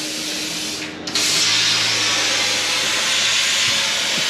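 Welding arc hissing steadily on a fabricated metal box. It breaks off briefly about a second in, then strikes again and runs on louder.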